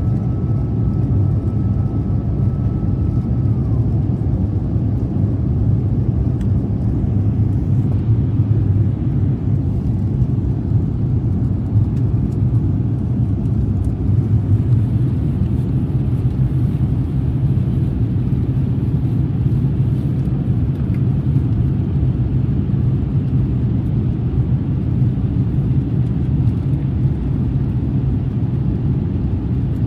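Jet airliner's engines and airflow heard inside the passenger cabin: a steady low rumble in the climb shortly after takeoff. A faint steady high tone fades out about three seconds in.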